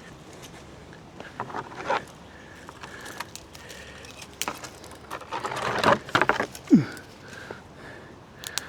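Footsteps scuffing and clicking over creek rocks and mud, with brush rustling. The sounds come irregularly and are busiest about six seconds in.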